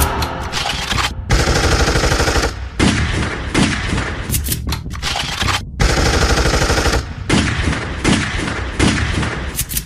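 Recorded machine-gun fire played over stage loudspeakers as part of a dance soundtrack: rapid, continuous bursts of shots broken by several short pauses.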